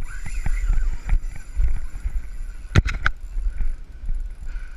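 Wind rumbling and buffeting on the microphone, with scattered handling knocks and a pair of sharp clicks a little past halfway.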